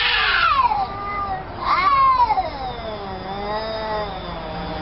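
Domestic cat yowling in an aggressive standoff. Two loud calls fall in pitch in the first two seconds, then a long, lower, wavering howl follows.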